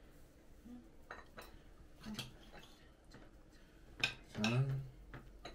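Metal cutlery and tongs clinking and scraping against plates at a meal table: a few scattered clicks, the sharpest about four seconds in.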